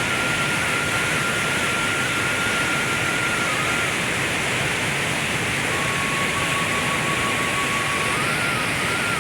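Steady rushing of water, like a stream or waterfall, unbroken throughout. A thin high tone is held above it for a few seconds, then steps down to a lower pitch and back up near the end.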